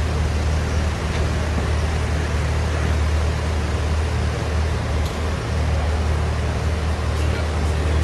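Vehicle engine idling with a steady low hum, under a constant wash of background noise.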